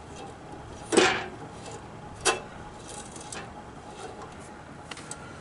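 Two sharp clicks just over a second apart, the first the louder, with a few fainter ticks, as a hand handles the blade of a benchtop band saw.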